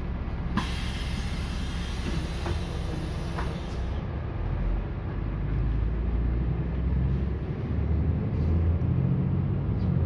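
Heard from inside a city bus: a steady low rumble of the bus engine and road. From about half a second to four seconds in, a hiss of air rises over it, and the rumble grows a little louder toward the end.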